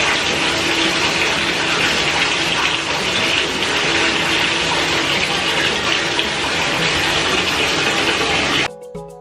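Bathtub faucet running steadily, water pouring from the tap into the tub. The water sound cuts off suddenly near the end, and background music begins.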